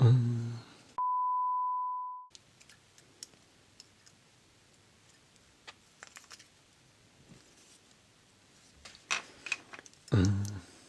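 A short exclamation cut off by a steady single-pitch censor beep lasting just over a second, which bleeps out a curse over the bricked lock. After it come faint scattered clicks of tools on the lock, with a few louder clicks and knocks near the end.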